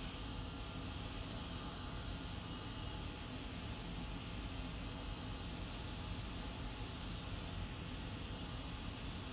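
Steady hiss of blowing air from a hot air rework station, its high tone shifting slightly every couple of seconds.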